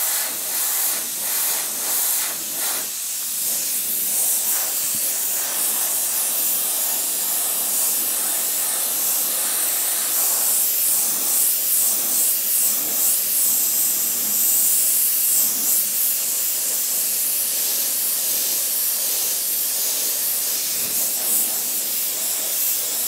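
Airbrush spraying paint: a continuous high hiss of compressed air and paint through the nozzle.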